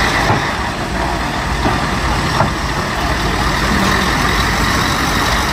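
Heavy diesel truck engines running steadily with a low throbbing pulse, as a heavy-haul tractor convoy moves an oversize load. A couple of short clicks are heard, near the start and about halfway through.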